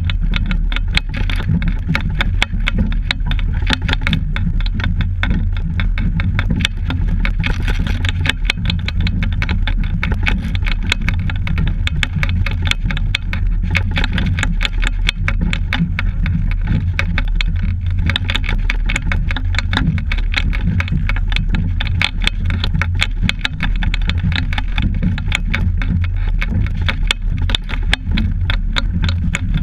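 Loud continuous low rumble with dense crackling throughout: wind and water noise on a camera mounted on a double scull under way.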